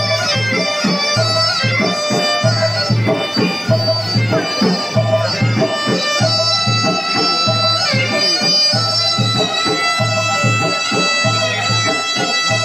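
Live traditional silat accompaniment: a reedy wind instrument plays a winding, ornamented melody over a steady, repeating pattern of low drum beats.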